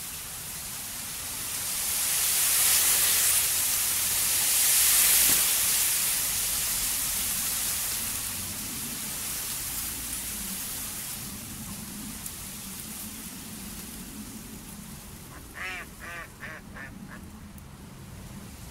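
A duck quacks about five times in quick succession near the end. Under it runs a steady rushing hiss that swells loudly for a few seconds near the start and then fades back.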